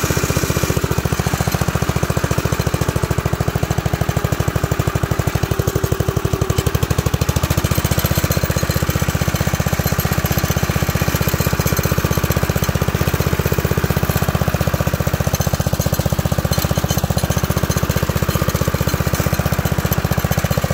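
1980 Locke Model 70 triplex reel mower running steadily under its own drive, its engine firing in an even, rapid beat while the three reels cut grass.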